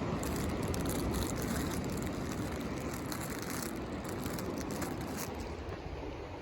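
Steady rush of wind and surf with a run of rapid clicking or rattling from just after the start until about five seconds in.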